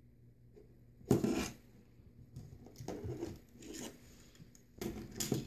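Small metal starter parts and a hand tool being handled on a tabletop: several short scrapes and clatters, the loudest about a second in.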